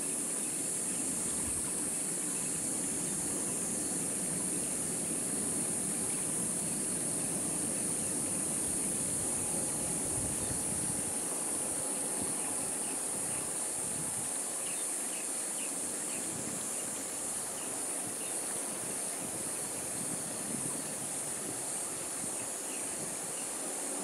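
Steady high-pitched chorus of insects, with the low, rolling wash of ocean surf underneath.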